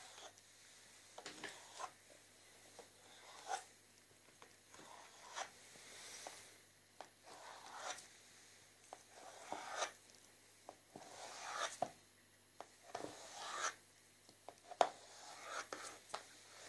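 Kitchen knife slicing a beefsteak fungus (liver mushroom) into strips on a plastic tray: irregular short rasping cuts through the soft flesh and light taps of the blade on the plastic.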